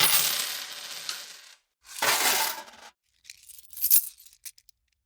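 Metal coins dropped and spilling together in a jingling burst that fades out over a second and a half. A second, shorter spill follows about two seconds in. Then come a few separate coins clinking down in quick clicks, the sharpest about four seconds in.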